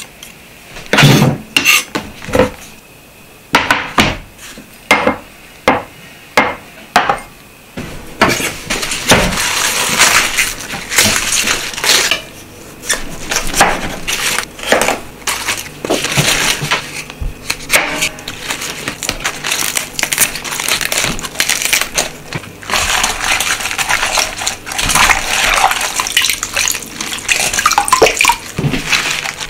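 A kitchen knife strikes a cutting board as garlic cloves are sliced, in separate knocks about one a second. About eight seconds in, napa cabbage leaves are snapped and torn off the head with crisp crunching and rustling. Near the end, steady running water splashes over the leaves as they are washed in a stainless mesh strainer.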